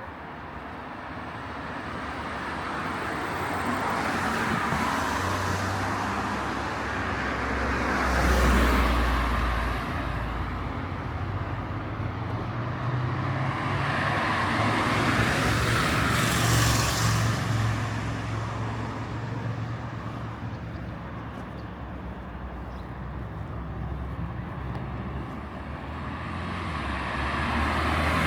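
Road traffic on a city street: cars passing one after another, each swelling and fading, with the loudest pass about eight seconds in and another around sixteen seconds.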